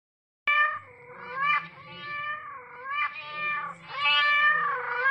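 A cat meowing: several drawn-out meows run together, starting about half a second in.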